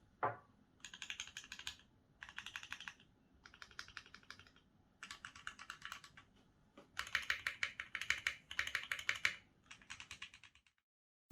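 Typing test on an Emery 65, a gasket-mounted 65% mechanical keyboard with a full brass bottom and C³ Banana Split linear switches: several bursts of fast keystrokes with short pauses between them, the longest and loudest burst in the second half.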